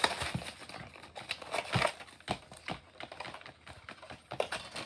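Plastic toy packaging being handled and pulled at by hand: irregular clicks, taps and crinkles as it resists opening without scissors.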